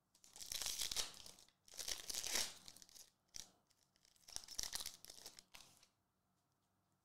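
Foil Panini trading-card pack wrapper being torn open and crinkled, in three bursts of crackling over about six seconds.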